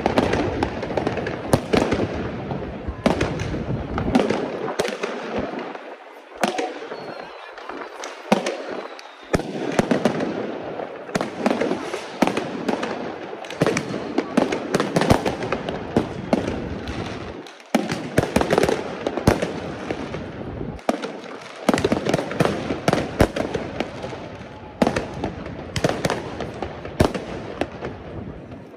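Fireworks and firecrackers going off throughout: a rapid, irregular string of sharp bangs and cracks over a constant crackle, easing only briefly now and then.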